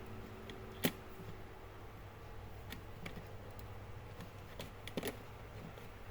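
Sharp clicks and light ticks of a hard drive being worked into a laptop HDD caddy, with the loudest click about a second in and a double click near the end, over a low steady hum.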